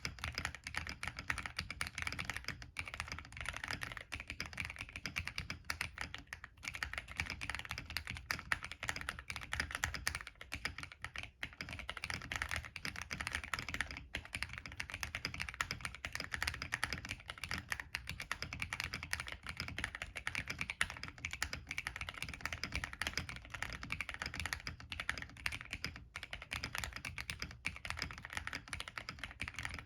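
Continuous fast typing on a plateless MK870 tenkeyless mechanical keyboard with NK Cream linear switches and PBT Cherry-profile keycaps: a dense stream of key clacks with a few brief pauses.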